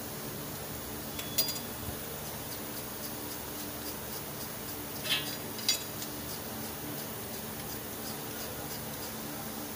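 A few light metallic clinks, one pair about a second in and two more around five seconds in, over a steady low hum.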